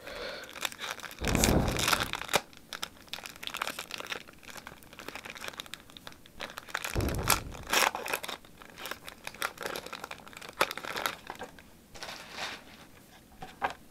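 Foil booster pack wrapper crinkling as it is handled and torn open, in two louder stretches about a second in and about seven seconds in, with crackly rustles between.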